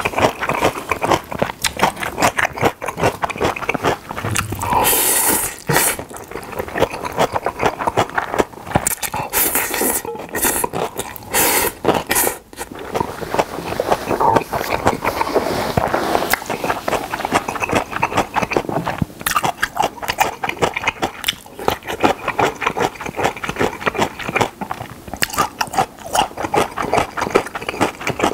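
Close-miked wet chewing and lip smacking of a mouthful of Jjapagetti, Korean black-bean-sauce instant noodles, in quick uneven clicks, with a few louder noisy bursts about five seconds in and again between nine and twelve seconds.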